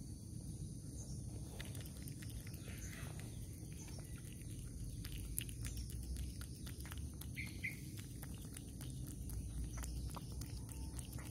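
A cat chewing and licking at a fried milkfish: a quick run of small wet clicks and smacks starting about two seconds in, over a steady low rumble.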